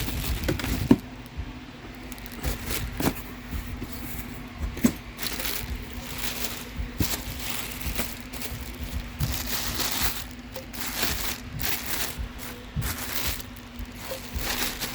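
Cardboard box and packing material being handled and torn open: irregular rustling, crinkling and tearing with scattered sharp knocks, over a steady low hum.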